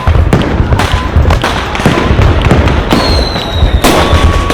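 Fireworks sound effect: a dense, continuous barrage of loud cracks and bangs, with a high whistle about three seconds in.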